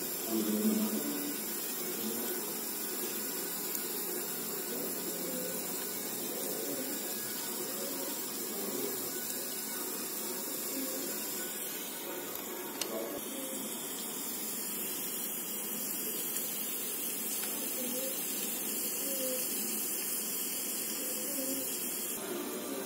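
Hot oil sizzling and bubbling steadily around potato sticks deep-frying in a miniature brass pan, a little louder just after the start.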